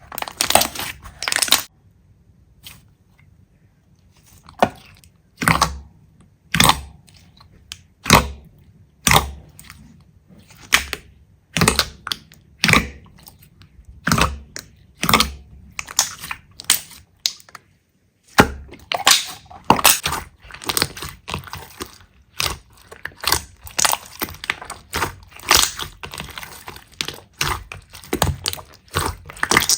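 Slime being pressed and squeezed by hand, giving sharp crackling pops, about one a second at first. After a short break partway through they become denser and quicker.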